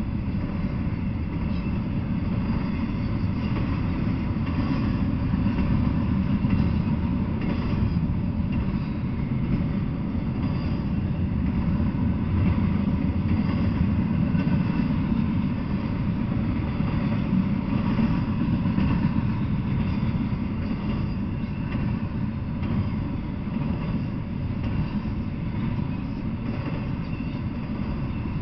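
Double-stack intermodal freight train rolling past, a steady low rumble of container well cars on the rails.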